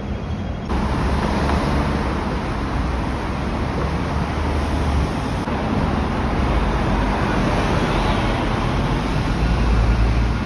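Steady road traffic noise of a busy city street, with the low rumble of bus engines. It jumps louder just under a second in, and the rumble is heaviest near the end.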